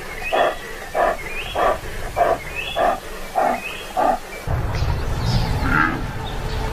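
A lion giving a regular series of short calls, about seven in four seconds. Background music takes over about four and a half seconds in.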